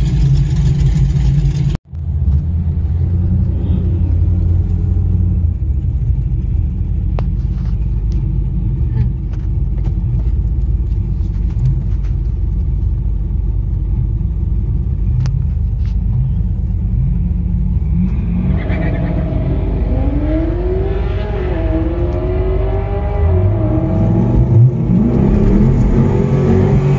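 Ford Mustang's engine idling, heard from inside the cabin, a steady low rumble. From about two-thirds of the way through, engines at the drag strip's starting line rev up and down several times, with rising pitch near the end.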